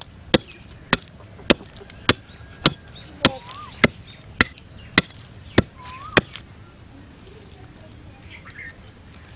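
A broad metal blade chopping at a thin wooden stick, trimming it: about eleven sharp, evenly spaced strokes roughly 0.6 s apart, stopping a little past six seconds in.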